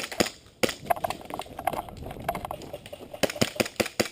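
Airsoft guns firing: sharp pops in single shots and short quick runs, irregularly spaced, with a rapid string of about five near the end.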